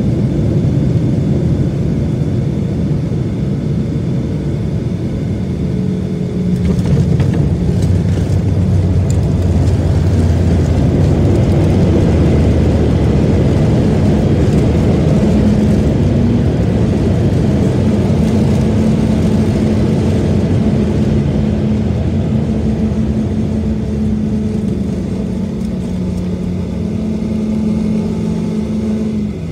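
Cabin noise of a Boeing 737-800 on its landing rollout: the CFM56 engines' roar swells about seven seconds in as reverse thrust is applied, holds, then eases off near the end as the jet slows.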